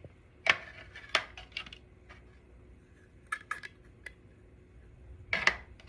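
Small hard plastic objects, 3D-printed pieces such as business card holders, being handled and set down: a scattered series of light clicks and clacks, the sharpest about half a second in and near the end.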